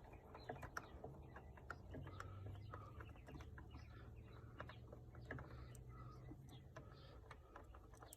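Near silence with faint, scattered small clicks and taps of hands and a small screwdriver working the ignition switch's screws and plastic trim.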